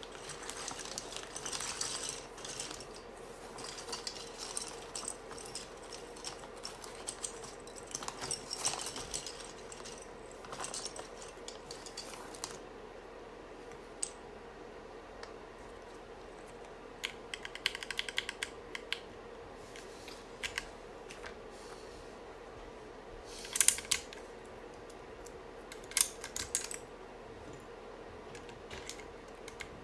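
Hands working on a mechanical keyboard: about twelve seconds of rustling and scraping handling noise with small clicks, then scattered sharp plastic clicks, a quick run of clicks near the middle and a few louder clacks later on. A faint steady hum runs underneath.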